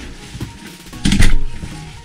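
Background music with a steady beat, and a loud thump about a second in.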